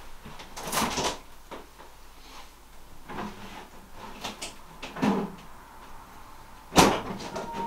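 Kitchen handling noises while a tub of plain yogurt is fetched: a few soft clunks a second or two apart, like cupboard or fridge doors and a container being moved, then a sharp knock near the end.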